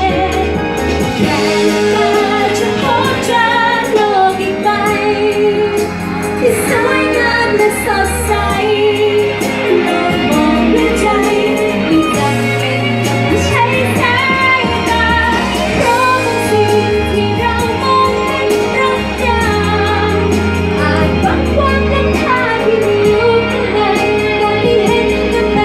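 A woman singing a pop song into a handheld microphone, with instrumental accompaniment.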